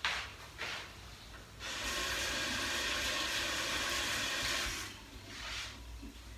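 Kitchen tap running into a stainless steel sink: a steady rush of water that starts about a second and a half in and stops about three seconds later. A few light knocks of handling come before it.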